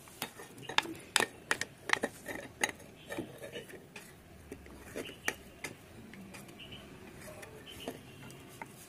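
Spoon clinking and tapping against a bowl while chopped vegetables are added to curd: a run of sharp, irregular clinks that thin out after about five seconds.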